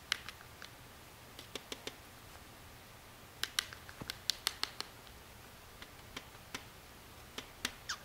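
Cockatiel pecking at the plastic buttons of a TV remote with its beak: faint, irregular clicks in small groups, with a quick run of about ten near the middle.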